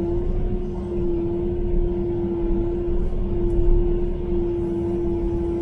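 Kubota KX080-4 excavator's diesel engine running under load, heard from inside the cab, with a steady whine over a low rumble while the machine pries a stump and its roots out of the ground.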